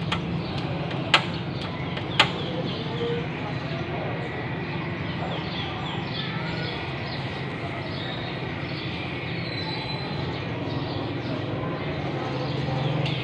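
Steady low background rumble with small birds chirping on and off, and two sharp clicks about one and two seconds in.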